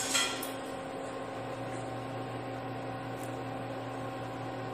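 Steady low hum with a faint even hiss in the kitchen, its deepest note growing a little stronger after about a second and a half, while milk tea simmers in an aluminium pot on the stove.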